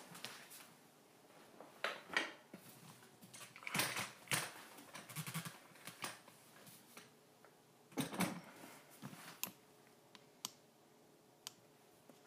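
Quiet handling noise from a camera being moved around: irregular knocks, clicks and rustling scuffs, busiest about two, four and eight seconds in, then a few single sharp clicks.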